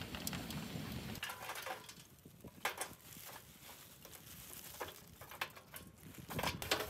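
Lumps of charcoal clinking and knocking against each other and the metal grill firebox as they are set in by hand: a scatter of sharp clicks, bunched near the end. A low steady rumble runs through the first second and stops abruptly.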